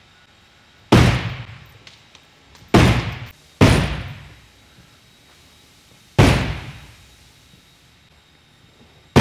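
Sledgehammer striking an HDPE (high-density polyethylene) boat hull four times at uneven intervals, each a heavy knock that rings out and fades in the big metal building. The hull takes the blows without being holed.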